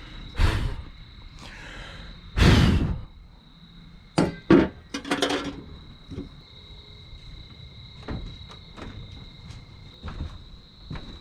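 A series of knocks and thunks with short scraping bursts, the loudest about two and a half seconds in and again about four and a half seconds in, over a faint steady high-pitched whine.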